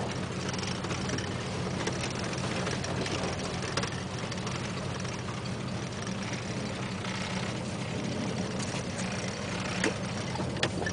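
1973 Cadillac Calais's 472 V8 engine running steadily at low revs, heard from inside the cabin as the car creeps along. A couple of light clicks come near the end.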